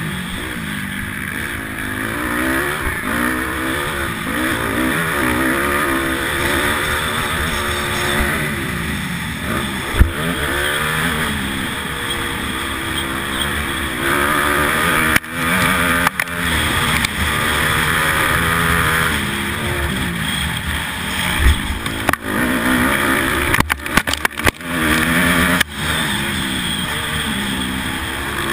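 Honda 250R motocross bike's engine heard from on board, revving up and dropping back again and again as the rider works the throttle and gears around the track, with wind rushing over the microphone. A few sharp knocks and brief cut-outs in the sound come in the second half.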